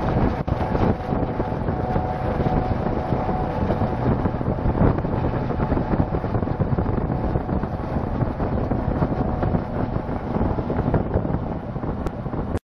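Strong wind buffeting the microphone, with a faint steady tone under it that fades near the end.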